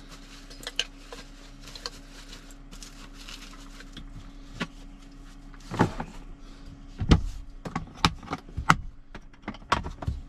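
A series of sharp knocks and clicks, sparse at first and then louder and more frequent in the second half, over a steady low hum.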